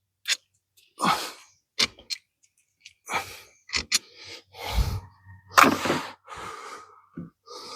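Metal engine parts being handled around a vinegar soak tub: a series of about ten short clinks and knocks, irregularly spaced.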